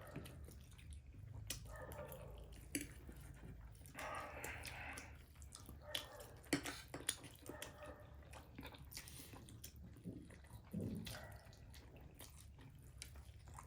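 People eating spicy instant noodles: soft slurping and chewing with scattered small clicks.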